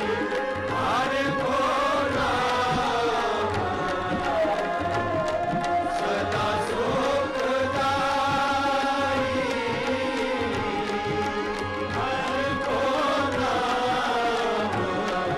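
Shabad kirtan: Sikh devotional hymn sung by a group of ragi singers, with melodic accompaniment and a steady tabla rhythm.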